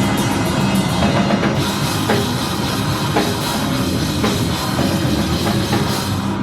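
Live rock band playing loud, heavy music, with the drum kit prominent and hard accented hits about once a second in the middle.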